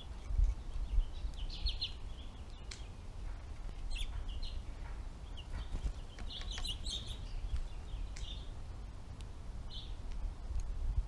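American goldfinches giving short, high chirps in scattered clusters at a seed feeder, over a steady low rumble.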